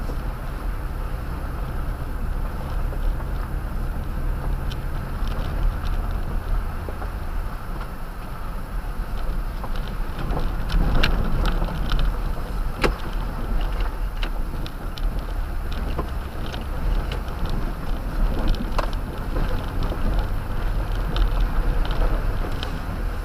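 Toyota Tundra pickup driving slowly over a rough dirt and gravel road, heard from inside the cab: a steady low engine and tyre rumble with scattered clicks and knocks from the rough surface, rougher and louder about halfway through.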